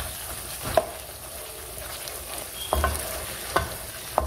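Wooden spatula stirring and scraping beef stew in a non-stick wok while the oil sizzles underneath: the bhunai stage, the masala and meat being fried down in oil. The spatula knocks against the pan about a second in and three times near the end.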